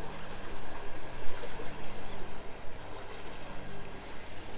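Water rushing and churning into a river lock chamber as it fills through the open sluices, with a low hum coming and going underneath.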